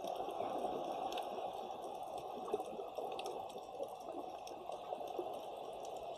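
Underwater ambience picked up by a submerged camera: a steady rushing water noise with scattered sharp clicks.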